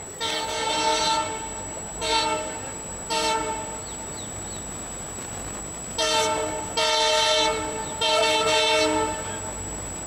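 Air horn of an approaching Indian Railways WDP4B diesel locomotive giving six blasts, each a chord of several tones: three short ones in the first few seconds, then three longer ones close together near the end. These are repeated warning honks at a cow beside the track.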